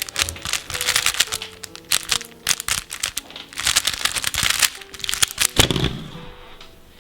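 Rubik's cube being turned fast in a speedsolve, a dense run of plastic clicks and clacks that stops about five and a half seconds in, over background music.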